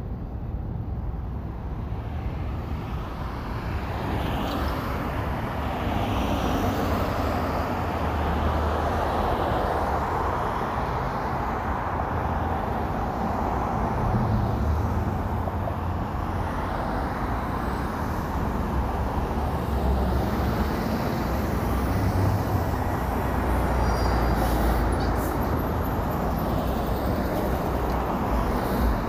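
Road traffic noise: a steady low rumble of vehicles passing, swelling and easing as they come and go, and growing a little louder a few seconds in.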